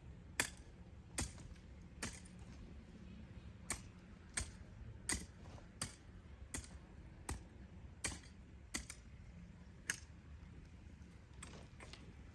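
A run of sharp, short knocks, about a dozen at a fairly even pace of a little more than one a second, fading to weaker taps near the end.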